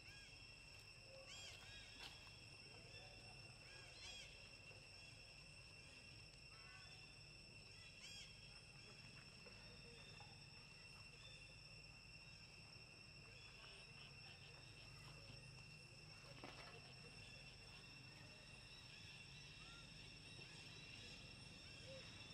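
Faint outdoor ambience of a steady, high-pitched insect drone, with a few short chirps in the first several seconds.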